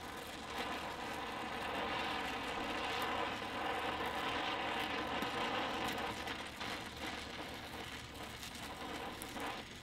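Oxy-fuel welding torch flame hissing steadily while a root pass is run on steel plate with filler rod, a little louder around the middle and easing off near the end.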